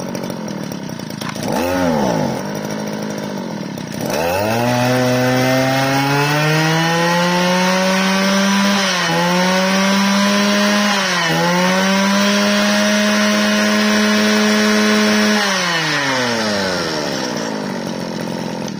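Mitsubishi TL201 two-stroke 20 cc brush-cutter engine being pull-started. It fires briefly about 1.5 seconds in, catches about 4 seconds in, and revs high and steady with two short dips. Its revs fall away near the end.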